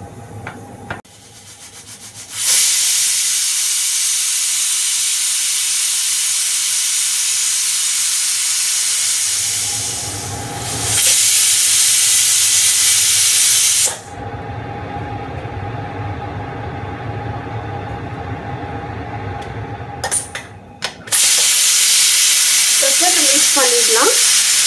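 Stovetop pressure cooker on a gas burner venting steam through its weight valve: long loud hisses with a quieter rumbling stretch between them. Near the end a spoon holds up the whistle weight for a manual pressure release, and the steam hisses out steadily.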